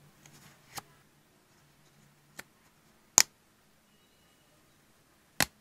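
Sharp clicks and taps from small hard objects handled at close range: four separate clicks, the loudest a little past three seconds in, with faint rustling at the start.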